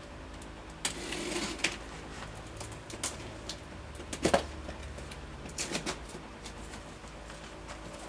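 Handling noise as a cardboard box and items on a cluttered bench are moved: scattered knocks, clicks and rustles, the loudest a knock about four seconds in, over a low steady hum.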